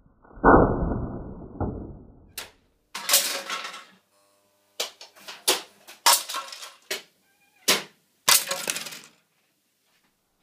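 Lionel O-gauge toy-train accessories going off. A heavy thud about half a second in rattles away over a second or so, then a string of sharp clacks and short clattering snaps from a spring-loaded accessory being tripped.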